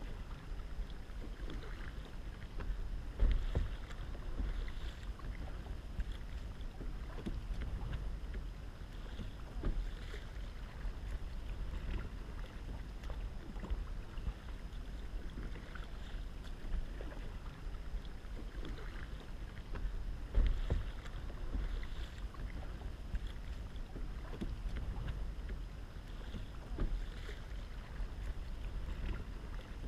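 Kayak paddle strokes dipping and swishing through calm water with light splashes, over wind rumbling on the microphone; a couple of louder low bumps come about three seconds and twenty seconds in.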